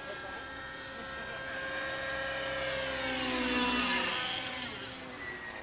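RC helicopter flying aerobatics: its .90-size glow engine and rotor blades running at high speed. The sound swells to its loudest about two-thirds of the way through, then the pitch slides down and it fades a little.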